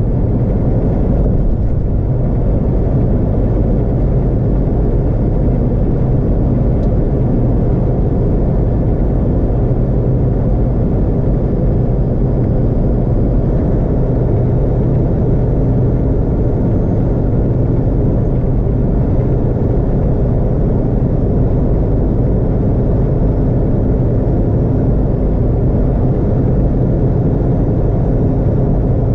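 Steady road and engine noise of a car cruising at freeway speed, heard from inside the cabin: an even low rumble that does not change.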